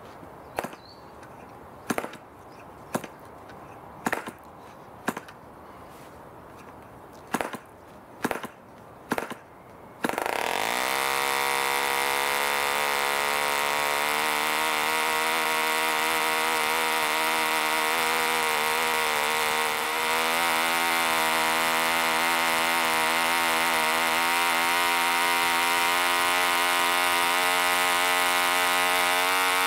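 1945 Rocket Victor 7.37 cc spark-ignition model engine swinging a 13x6 wooden propeller. First come about eight sharp pops, roughly a second apart, as the propeller is flicked over by hand. About ten seconds in the engine catches, revs up within a second and then runs steadily at just over 5,000 RPM.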